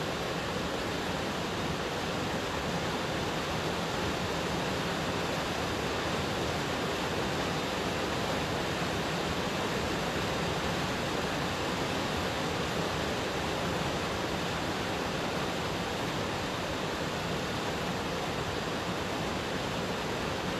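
A steady, even rushing hiss with no rhythm or tones, unchanging in level.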